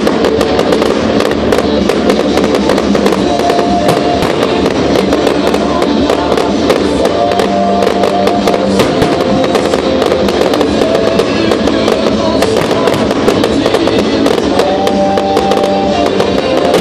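A fireworks display popping and crackling densely and without a break, over loud music with held notes.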